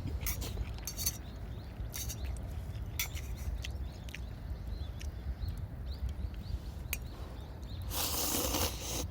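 Wood campfire crackling, with scattered sharp pops and ticks over a steady low rumble. A louder rushing hiss comes near the end.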